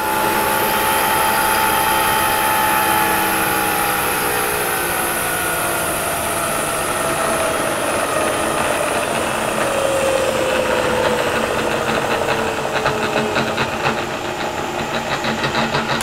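Variable-speed Bridgeport milling machine head running with its motor and spindle whine, the pitch slowly falling as the speed is wound down from 4,200 RPM. Near the end, at the low end of the speed range, a rapid ratcheting clatter sets in, a sign of trouble in the variable-speed drive that the owner means to tear into.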